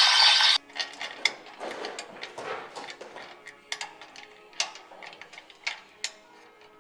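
DeWalt cordless drill running loud and high-pitched as it bores into a steel truck frame rail, stopping abruptly about half a second in. Light metallic clicks and knocks of hands and tools on the frame follow.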